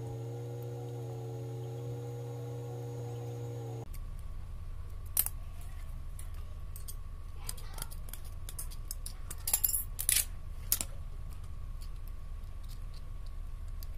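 A few sharp clicks and clinks from the small metal parts of a dry-cell battery being taken apart by hand, loudest in a quick cluster about two thirds through, over a low steady hum. It opens with a held musical tone that cuts off abruptly about four seconds in.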